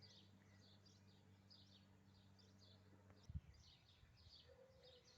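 Faint bird chirping outdoors: short, quick chirps repeating throughout. A steady low hum underneath stops about three seconds in, followed at once by a single dull thump.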